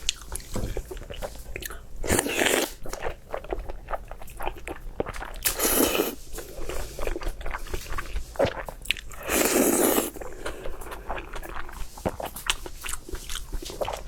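A person eating close to the microphone, mukbang-style: chewing with many sharp crunching bites and clicks, and three longer, louder bursts about two, six and nine and a half seconds in.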